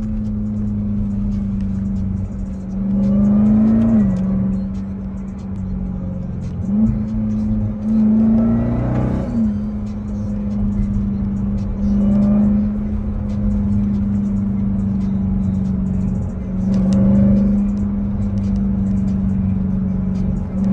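Supercharged 6.2-litre Hemi V8 of a Dodge Durango SRT Hellcat heard from inside the cabin, running through the gears: four surges of acceleration, its pitch climbing and then dropping sharply at the upshifts, with the exhaust barking.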